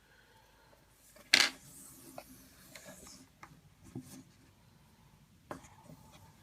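Cutting and singeing the ends of a nylon paracord bracelet: a sharp click a little over a second in, followed by a soft hiss for about two seconds, then a few faint clicks.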